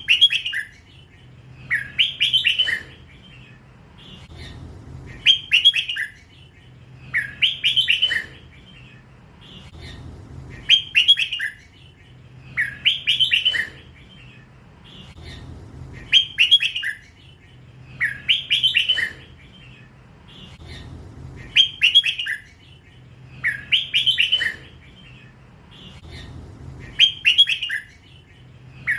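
Young hybrid red-whiskered bulbul singing the same short phrase of several quick notes over and over, about every two and a half seconds, in the song style Thai keepers call 'lak wai'. A faint low hum runs underneath.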